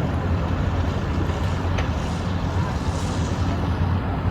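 A steady low engine drone, with a rushing hiss that swells about halfway through and then fades.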